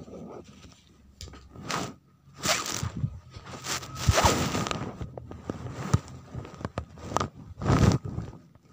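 Plastic and paper packaging rustling and crinkling in irregular short bursts as a toy truck is unwrapped by hand.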